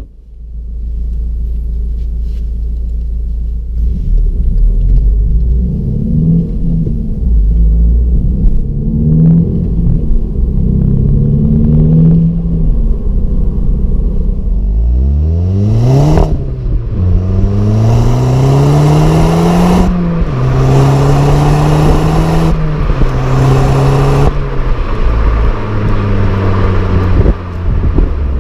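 VW Polo R WRC's turbocharged 2.0-litre four-cylinder engine pulling away at low revs through several short gear changes. About halfway it accelerates hard, revs rising steeply, then runs through a series of upshifts, each a rising pitch that drops back, with rushing noise growing over it.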